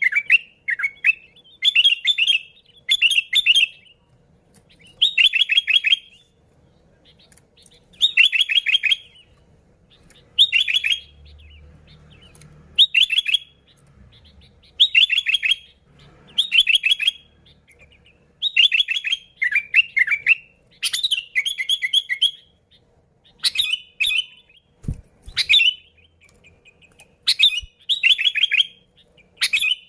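Sooty-headed bulbul singing: short phrases of quick fluttering notes, each under a second, repeated every one to two seconds. It is a lively, vigorous (gacor) song of the kind used to call in other bulbuls.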